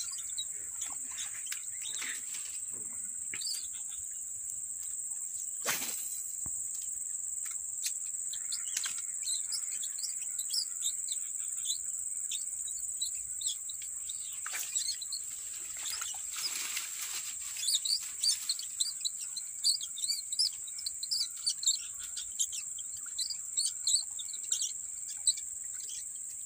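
A steady, high-pitched chorus of insects droning, with quick chirps joining in that grow busier in the second half. There is one sharp click about six seconds in.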